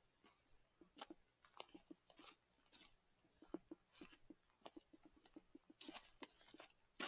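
Footsteps crunching on a snow- and ice-covered trail at a steady walking pace: a run of faint, short crunches, a few each second.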